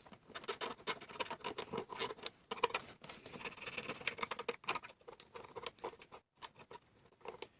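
Many small, irregular clicks and light scratching as the spring-driven shutter mechanism of an old Ensign Ful-Vue camera is worked by hand.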